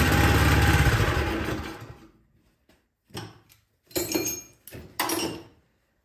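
Cub Cadet snowblower's single-cylinder four-stroke engine firing on starting fluid sprayed into the cylinder. It runs for a moment, then dies away within about two seconds. Running only on starting fluid is the sign that fuel is not getting from the carburetor into the cylinder. Three short bursts of sound follow.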